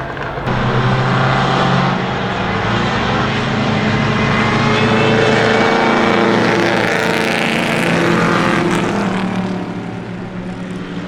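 Racing car engines running past at close range, a steady multi-toned engine note that swells from about half a second in and eases off near the end.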